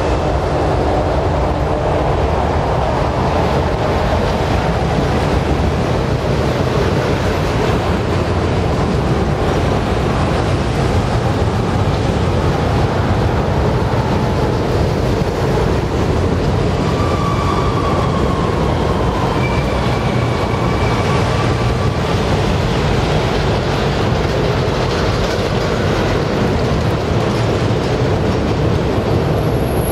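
Autorack freight cars rolling past at speed: a steady rumble and clatter of steel wheels on the rails. A few faint high squeals come a little past halfway.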